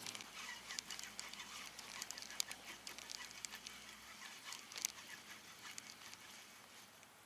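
Faint calls of distant waterfowl over quiet marsh ambience, with soft, irregular small ticks throughout.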